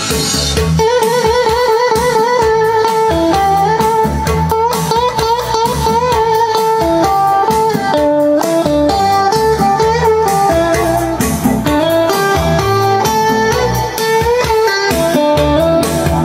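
Instrumental music with a lead guitar melody bending and wavering over bass and a steady beat, played through JVC Victor SP-EXA10 wood-cone bookshelf speakers driven by a Luxman A3500 valve stereo power amplifier.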